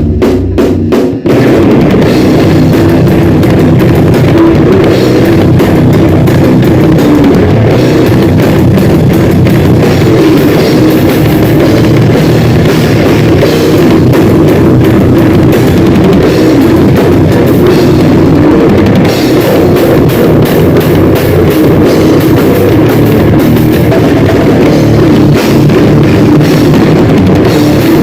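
Grindcore band playing at full volume: a fast, dense drum kit with heavy bass drum and cymbals under a continuous wall of band sound. It opens with a few quick separate hits before the whole band comes in about a second in.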